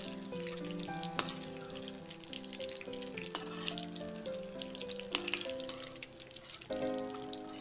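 Hot oil sizzling in an iron kadhai around fried pointed gourd and potato pieces, with the scrape and click of a steel spatula against the pan as the pieces are lifted out. Background music with a simple stepping melody plays throughout.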